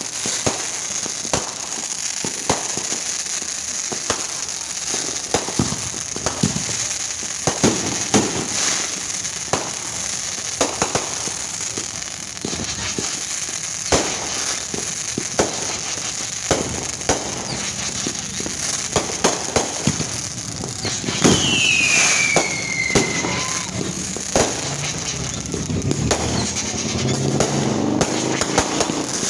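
Fireworks going off: a continuous run of bangs and crackling pops, with a high whistle falling in pitch about two-thirds of the way through.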